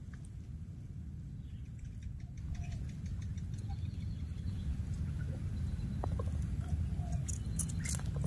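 Light crackling and rustling of dry grass and twigs as a baby monkey crawls over them, with a few sharper snaps near the end, over a low steady rumble of wind on the microphone.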